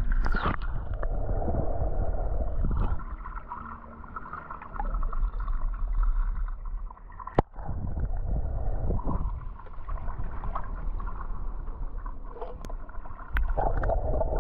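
Water sloshing and gurgling as toy cars are moved through it, with a sharp click about seven seconds in.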